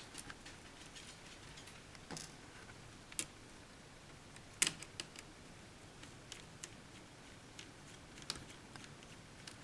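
Light, scattered clicks and ticks of a small screwdriver and tiny screws being worked out of the edge of a laptop screen frame, the sharpest click about four and a half seconds in.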